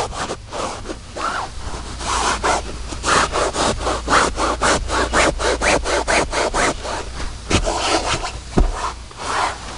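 A towel is scrubbed hard back and forth over cloth car-seat upholstery, wiping degreaser and dirt out of the fabric. It makes quick rasping strokes, roughly three or four a second, with two sharp knocks near the end.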